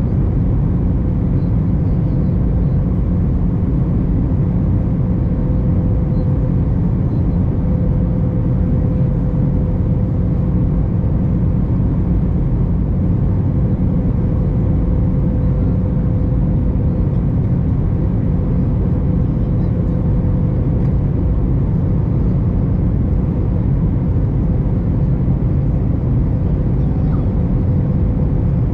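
Steady cabin noise inside an Airbus A321 in flight: the engines and the airflow over the fuselage make an even low rush, with a faint steady hum above it.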